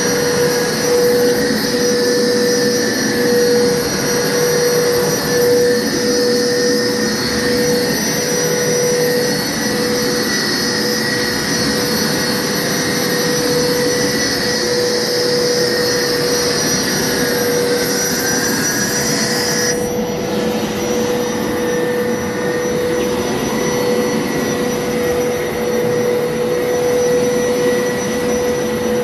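Hoover upright carpet washer running in wash mode as it is pushed over carpet, its motor and suction making a steady whine with a high hiss. About two-thirds of the way through, the high hiss drops off suddenly while the motor whine carries on.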